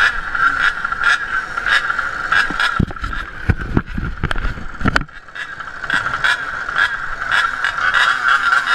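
Gas-powered Goped racing scooter engines, small two-strokes, buzzing at high revs. A run of heavy low thumps comes in the middle, the sound drops suddenly about five seconds in, and the engine buzz swells back up near the end.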